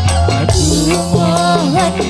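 Live dangdut band music: a bending lead melody over a steady bass line, hand drums and a shaker-like rattle.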